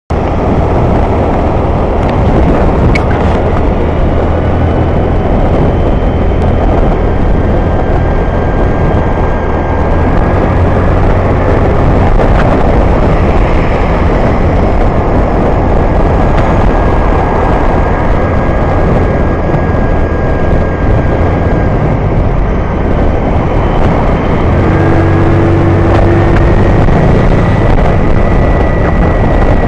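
Honda motor scooter riding in traffic: a steady rush of wind and road noise over the scooter's engine running at cruising speed. A brief steady tone sounds near the end.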